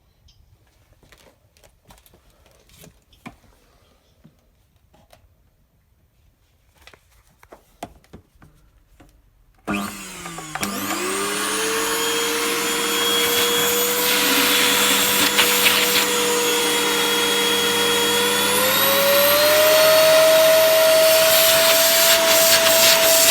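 Scarlet SC-80B01 vacuum cleaner, with a few faint handling clicks, then the motor switching on about ten seconds in. It spins up with a rising whine and settles into a steady run with a loud airy hiss. A few seconds before the end, its pitch climbs a step higher and holds there.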